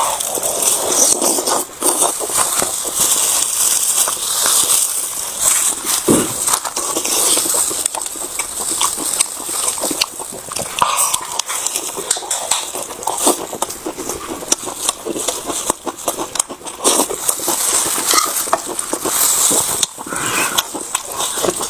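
Close-miked eating sounds: wet chewing of mouthfuls of braised pork, noodles and lettuce, made up of many small irregular mouth clicks and crackles.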